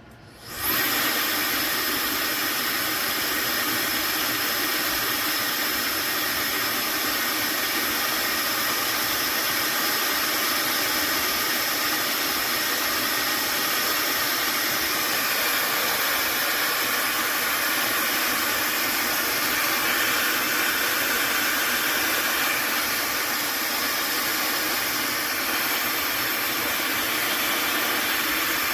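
AINA high-speed hair dryer switched on about half a second in, then running steadily: a loud rush of air with a thin high-pitched motor whine.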